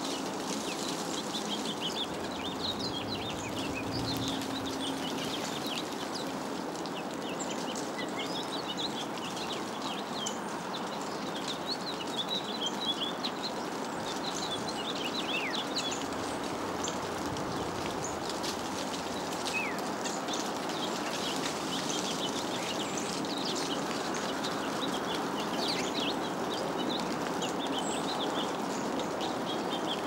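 Small backyard songbirds chirping: many short, high chirps overlapping almost without pause, with a few falling whistles, over a steady background rumble.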